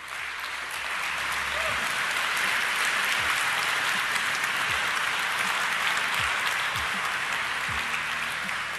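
Large audience applauding: dense, steady clapping that swells over the first couple of seconds and tapers off near the end.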